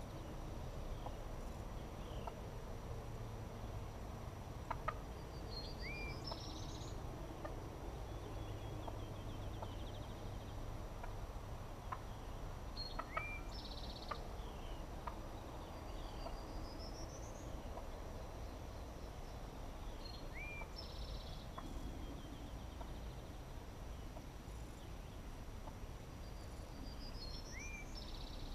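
Open-field spring ambience: a songbird repeats the same short song, a burst of high notes, a rising trill and a quick upslurred whistle, about every seven seconds over a steady low rumble, with a couple of faint clicks.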